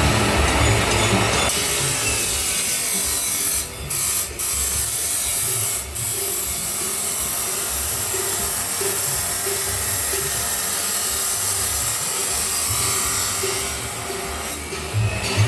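Angle grinder cutting through stainless steel pipe: a steady, loud, hissing grind with three brief dips in the first half as the disc eases off, and a softer stretch near the end.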